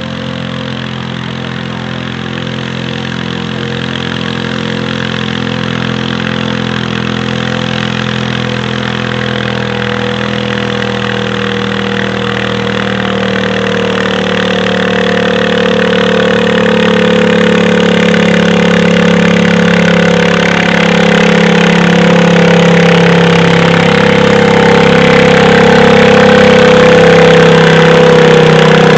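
Modified garden tractor engine running hard under load as it pulls a weight-transfer sled. It grows steadily louder as the tractor comes closer, and the pitch holds fairly steady.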